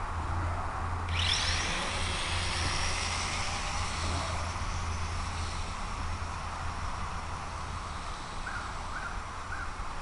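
Dromida Vista quadcopter's electric motors spinning up about a second in with a rising whine, then holding a steady high whine as it lifts off, over a low wind rumble on the microphone. Three short chirps near the end.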